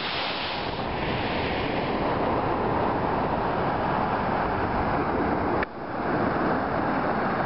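River rapids and small waterfalls rushing over rock ledges: a steady rush of white water, with wind noise on the microphone. The sound drops out briefly about five and a half seconds in, then carries on.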